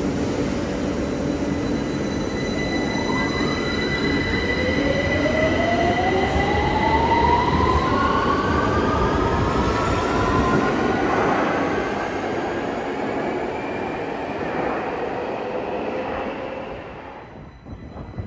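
London Underground Victoria line 2009 Stock train pulling out of the platform: its traction motor whine rises steadily in pitch as it accelerates, over the rumble of wheels on rail. The sound fades away near the end as the train leaves.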